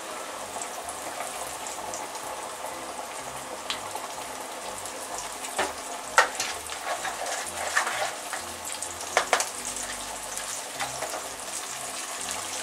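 Flour-coated chicken pieces deep-frying in very hot oil in a wire fryer basket: a steady sizzle, with a few sharp clicks scattered through it. The oil is hot enough for the coating to turn crisp.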